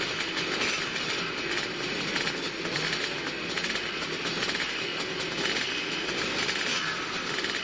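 A full starting line of two-stroke motocross bikes running together behind the start gate, a dense, steady massed engine buzz with no single bike standing out.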